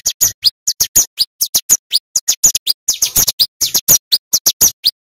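Male ciblek gunung (mountain prinia) singing a loud, fast run of sharp, high chipping notes, about six a second, in the dense, rapid-fire style bird keepers call gacor.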